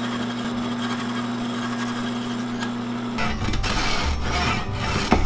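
A scroll saw runs with a steady electric-motor hum as its fine blade cuts through a wooden dowel. Just after three seconds a louder, rougher power-tool sound takes over as a cut plug is held against a sander, with a sharp click near the end.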